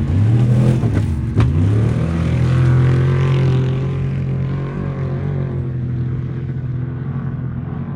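Off-road race truck engine revving hard, its pitch dipping and climbing over the first two seconds with a sharp crack about a second and a half in. It then holds a steady high pitch and fades, growing duller as the truck moves away.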